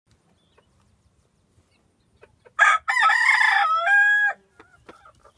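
Rooster crowing once, about two and a half seconds in: a short first note, a harsh middle part and a long held final note, all over in under two seconds.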